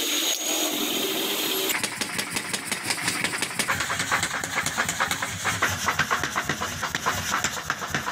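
Mechanical power hammer pounding a red-hot steel cleaver blank, a fast, even run of blows that starts about two seconds in.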